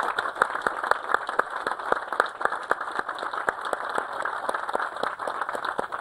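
Audience applauding, a dense patter of many hands clapping that thins out near the end.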